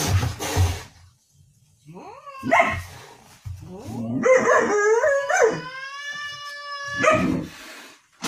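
Husky-type dog vocalizing: a noisy bark at the start, short yips a couple of seconds in, then one long howl that wavers and then holds a steady pitch for about two seconds, ending in a short bark.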